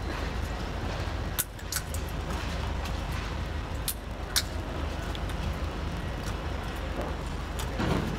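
Steady low rumble of street background noise, with a few sharp clicks or taps, four of them in the first half.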